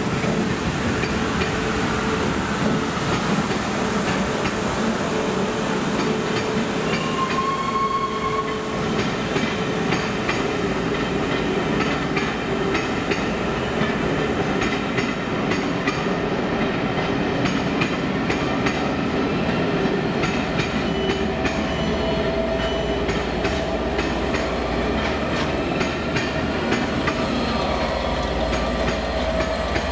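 A South West Trains Class 450 electric unit finishes passing in the first few seconds. Then a long train of Pullman coaches rolls steadily past, its wheels clicking over the rail joints.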